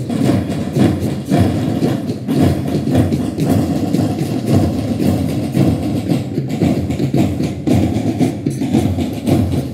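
School marching band drums playing a continuous, dense marching beat, heavy in the low end.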